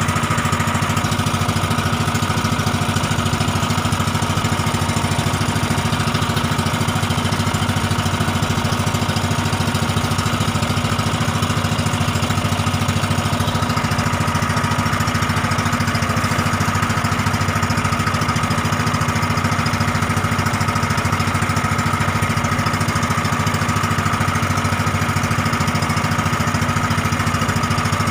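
Fishing boat's engine running steadily at an even, unchanging speed, a constant low drone with a thin steady tone above it.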